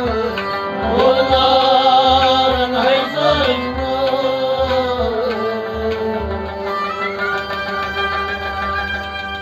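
A man sings a Sufi kalam over a harmonium, with a steady drum beat underneath. The voice stops about six seconds in, and the harmonium and drum carry on.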